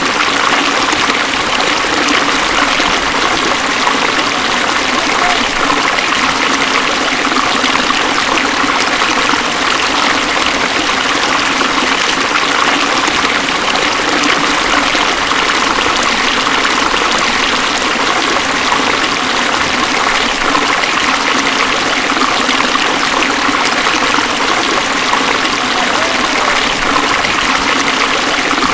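Beas River rushing past, a steady, loud rush of fast-flowing water.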